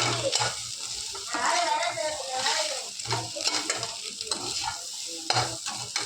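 Scrambled egg, carrot and beans sizzling in oil in a kadai while being stirred over slow-medium heat, with the stirring tool repeatedly scraping and knocking against the pan.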